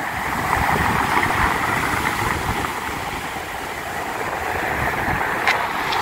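Storm surf: waves breaking and washing foam up a pebble beach, a steady rushing that swells about half a second in, with a low rumble of wind on the phone's microphone.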